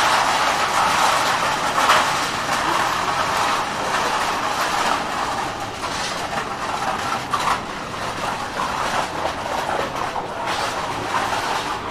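A rail vehicle running close by on its tracks, with sharp clicks from the wheels over the rails; the sound slowly fades toward the end.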